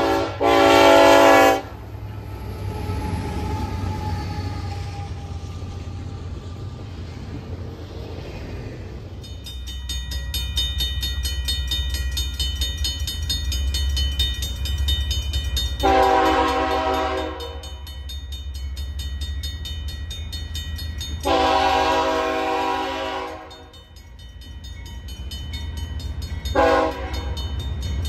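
A diesel freight locomotive's horn ends a blast about a second in, followed by the low rumble of the passing train. Then a grade-crossing bell rings steadily over the rumble of approaching diesel locomotives, and the lead locomotive's horn sounds for the crossing: two long blasts, then a short one near the end.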